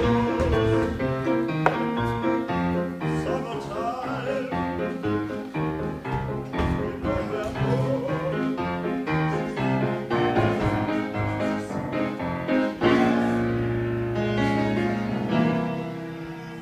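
Music: piano playing with a singing voice. A held chord near the end fades away.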